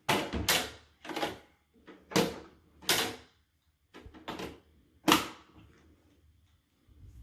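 Plastic toy vending machine being worked by hand: a run of about eight sharp clicks and clacks at uneven intervals, the loudest about five seconds in.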